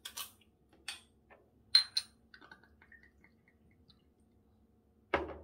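A green glass soju bottle being handled and poured: a few sharp clicks and two glassy clinks, then a brief run of small glugs as the soju goes into a shot glass. About five seconds in, a louder thud as the bottle is set down on the table.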